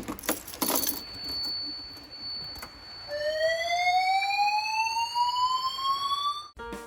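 Fire alarm voice evacuation system sounding through its speaker: a steady high-pitched tone, joined about three seconds in by a slow rising whoop evacuation tone. Both cut off suddenly just before the end. A few knocks near the start.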